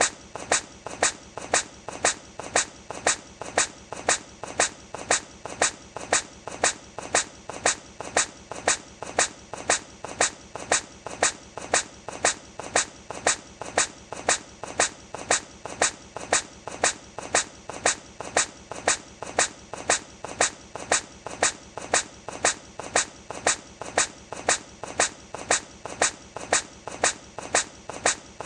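A hedgehog sneezing over and over in a short looped clip: sharp little sneezes at a steady pace of about three every two seconds.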